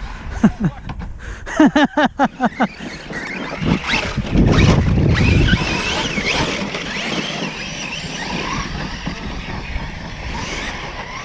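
Large 8S electric RC trucks driving, their brushless motors revving in a quick run of short bursts about two seconds in, then a louder low rumble about four seconds in, settling into a steady whine and tyre noise.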